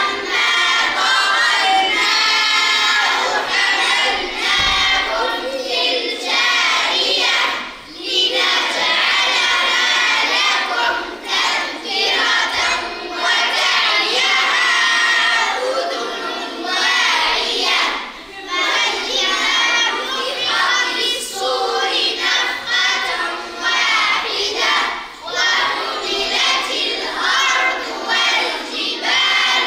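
A group of children chanting Quranic recitation in unison, loud and continuous, with brief pauses for breath between phrases.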